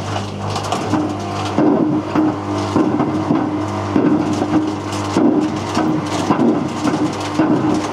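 Whirlpool WWDC 7210/1 washing machine drum turning with a brick inside: a steady motor hum under irregular knocks and clatters, about one or two a second, as the brick tumbles against the drum.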